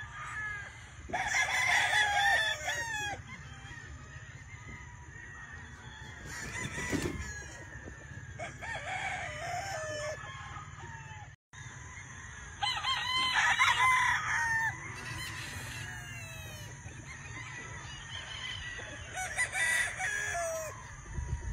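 Gamefowl roosters crowing: several long crows a few seconds apart, the loudest near the start and just past halfway, with fainter crows from other birds in between.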